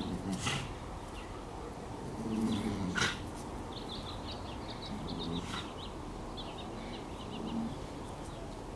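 Dogs playing tug-of-war over a rope toy, with a few short low growls. Small birds chirp in the background in quick clusters partway through.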